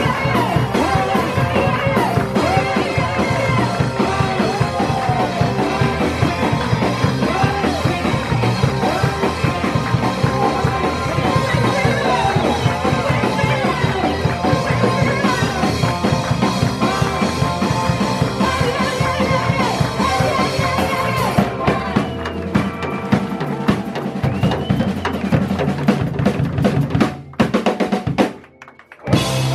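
Live soul-rock band playing: a woman singing over electric keyboard, electric bass and drum kit. About twenty seconds in the band thins out to mostly drum kit hits, then stops briefly near the end before coming back in loud.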